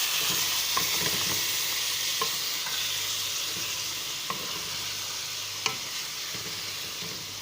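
Boneless beef with fried onion, ginger-garlic paste and spices sizzling in hot oil in a pan while being stirred, with a few sharp clinks of the spoon against the pan.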